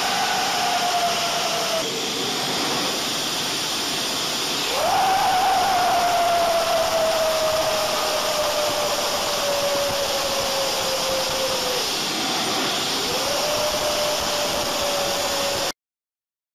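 Jet engine running with a steady rushing roar and a whine that jumps up sharply three times and sags slowly after each, as the throttle is opened and eased. It cuts off suddenly near the end.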